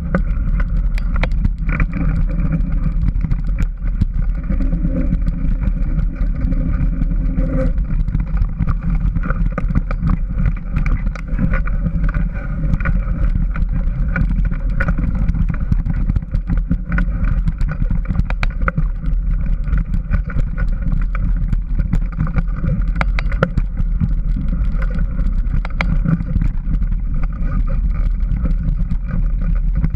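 Engine of a small off-road vehicle running steadily while riding a rough dirt trail, with frequent knocks and rattles throughout.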